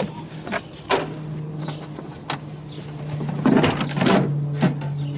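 Sharp irregular clicks and knocks, like metal parts and tools being handled, with a denser run of them past the middle, over a steady low hum.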